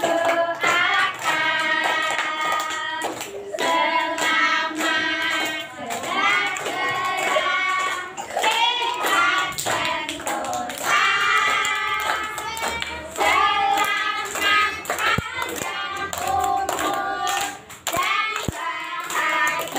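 Voices singing a birthday song, with hands clapping along.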